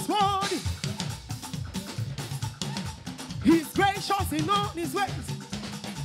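Live gospel praise music: a drum kit and bass keep a steady beat while a woman's voice sings short, wavering phrases, near the start and again from about three and a half seconds in.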